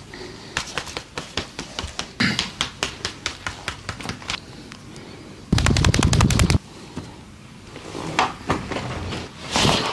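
Joint cracking during a chiropractic-style body adjustment: a run of small sharp pops over the first few seconds, then a loud rapid volley of cracks lasting about a second a little past the middle.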